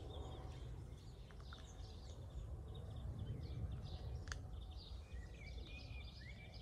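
Outdoor ambience: small birds chirping and twittering over a low steady rumble, with one sharp click about four seconds in.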